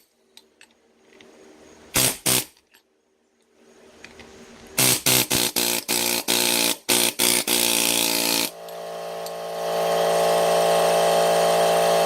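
Handheld electric power tool's motor driving a press tool that pushes a universal-joint bearing cap into its yoke. Two short blips come about two seconds in, then a string of quick trigger pulses from about five seconds, then a steady run over the last few seconds.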